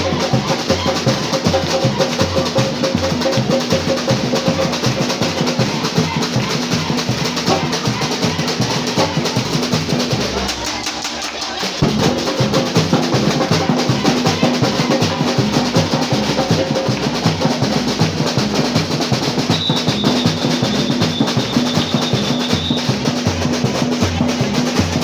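Batucada: a Brazilian samba drum section playing a fast, driving rhythm on many drums together. About ten seconds in the deep bass drums drop out briefly before the full ensemble comes back in.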